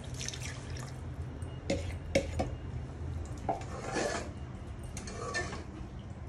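Stock poured from a plastic bowl into a steel pot of curry, then a spoon stirring the curry and clinking against the pot's side several times.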